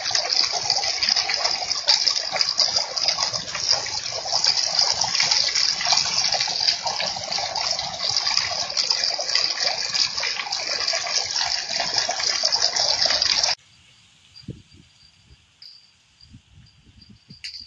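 Heavy rain pouring onto a paved street, a dense steady hiss, heard through a security camera's microphone. About 13 seconds in it cuts off abruptly to a much quieter scene: a steady high insect chirring and a few soft low thumps.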